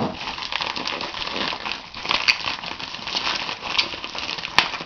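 Packaging being handled and opened: continuous crinkling and rustling, with a sharp click about two seconds in and another near the end.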